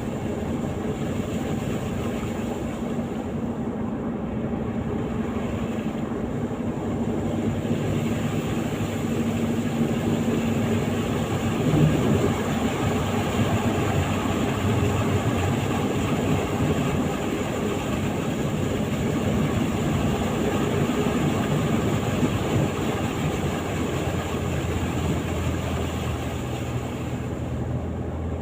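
A vehicle running steadily, its engine hum under a constant rush of road or wind noise.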